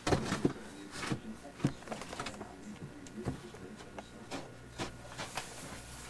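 Snow shovel scraping and knocking on a snowy deck, heard from indoors through a window: a string of irregular scrapes and thumps, the strongest in the first half-second.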